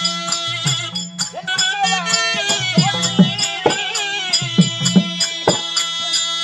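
Tamil folk-drama music: a wavering, vibrato-laden melody over a steady drone, with repeated drum strokes and a light rattling percussion.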